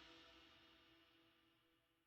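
Background music fading out to near silence, its last held notes dying away in the first second.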